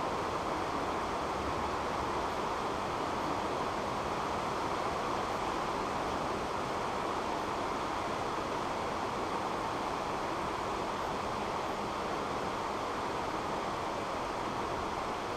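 Steady, even hiss of room noise in a large sports hall, with no voices or distinct events.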